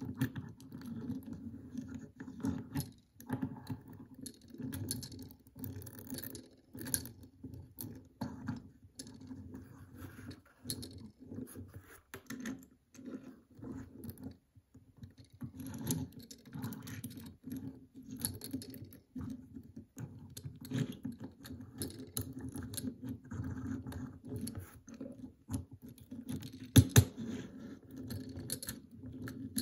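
A Hot Wheels die-cast toy car rolled back and forth by hand on a smooth hard tabletop: the plastic wheels rumble and rattle in short, uneven pushes with small clicks, and one sharp knock stands out near the end.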